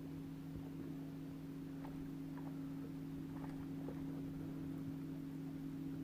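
Steady low hum on two constant pitches, with a few faint ticks.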